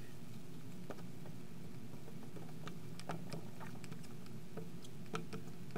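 Marker writing on a glass lightboard: faint, irregular taps and small squeaks of the tip against the glass, about a dozen in all, over a steady low room hiss.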